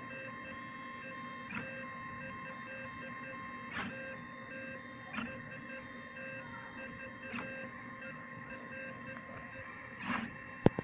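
Stepper motors of a belt-driven CNC laser engraver whining in short stop-start runs as the laser head steps across vinyl film, with a few soft knocks and a sharp click near the end.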